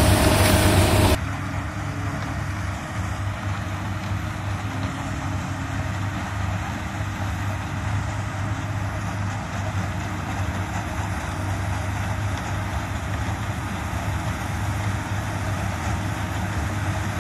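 Sugarcane harvester and the tractor beside it running steadily as the harvester cuts cane and loads it into the trailer; a continuous engine drone. It is louder for about the first second, then drops suddenly to a lower, even level.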